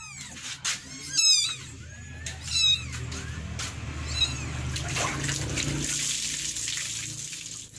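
Kittens mewing: short, high-pitched calls that rise and fall, about three in the first three seconds. A steady rushing noise follows for the rest.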